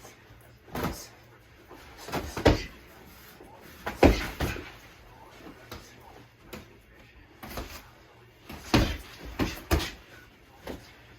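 Boxing gloves landing punches during sparring: irregular sharp thuds, several in quick pairs or flurries.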